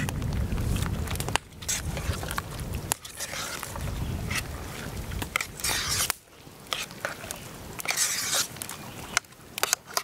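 A spoon scraping and scooping thick rehydrated food in a camp cooking pot, giving a run of short scrapes and clicks.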